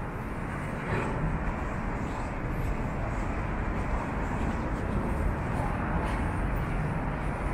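City street ambience: a steady, even wash of distant traffic noise.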